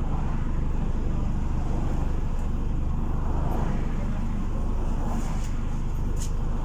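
City bus's diesel engine running at a steady speed, heard from inside the passenger cabin as an even low rumble. A couple of faint clicks come near the end.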